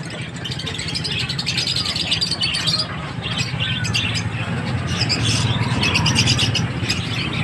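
A dense chorus of small caged birds chirping without pause, over a steady low hum.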